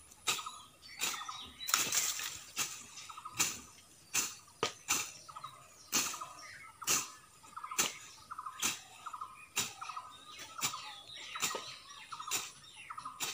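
A long-handled curved blade slashing through grass and weeds in steady strokes, a little more than one a second, each a short swish and chop.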